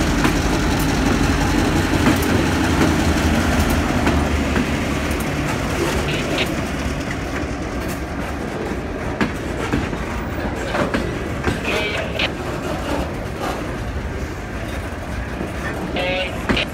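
An EMD GP7 locomotive's 16-cylinder two-stroke diesel runs as it passes close by, its low rumble fading over the first few seconds as it pulls away. Loaded flatcars then roll past, their wheels clacking over the rail joints.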